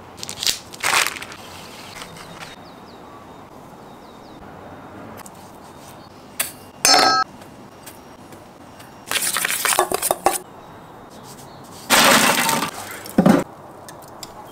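A glass lid clinks against a stainless steel mixing bowl of dry rub with a brief ring about seven seconds in. Around it come short rustling, scraping bursts and a sharp knock from handling the food and bowls as seasoning is rubbed onto a mustard-coated bologna log.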